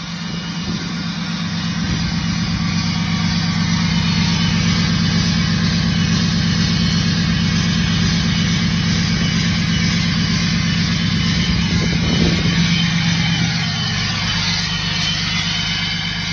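Tuned, emissions-deleted 6.7 Cummins inline-six turbodiesel in a 2017 Ram running at high idle, the turbo whistling over the engine. The sound builds over the first few seconds, holds steady, then drops a little about three seconds before the end.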